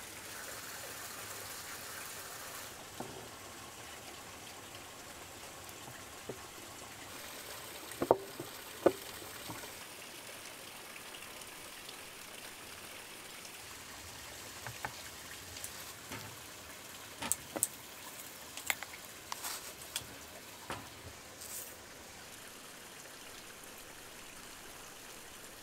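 Steady trickle of running water with light clinks and knocks as fish and spices are packed into glass jars: two sharp knocks about eight and nine seconds in, then a scatter of small clicks later on.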